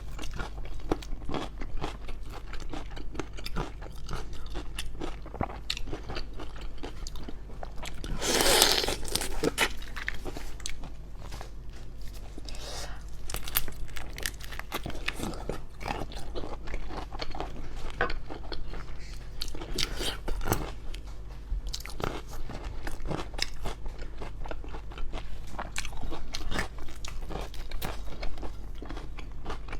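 Close-miked eating sounds of raw black tiger shrimp being bitten, crunched and chewed: a continuous run of wet clicks and smacks, with one louder stretch lasting about a second some eight seconds in.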